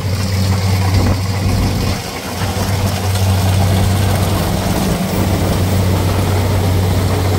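Kubota crawler combine harvester running steadily as it cuts ripe rice: an even, low engine drone under wide machine noise, easing briefly about two seconds in.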